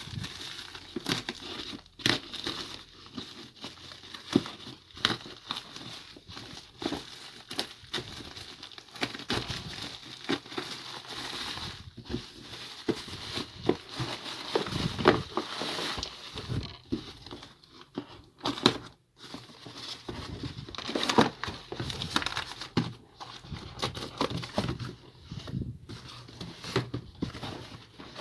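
Packaging being unpacked by hand: continuous crinkling and rustling, with frequent small clicks and knocks.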